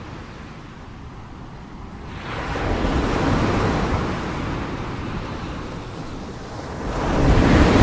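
Sound of ocean surf: a wave rushes in about two seconds in, ebbs, and a second wave swells up near the end.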